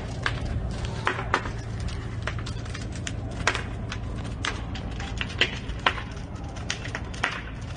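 Large fire burning against a building wall, crackling and popping irregularly over a steady low rumble.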